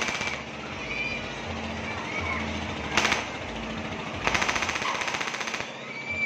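Diesel engine of a kora-kora swing ride running through a tall open straight exhaust pipe. It rattles out bursts of rapid machine-gun-like exhaust pops as it revs: one at the start, a short one about 3 seconds in, and a longer one lasting over a second soon after, with a lower running sound in between.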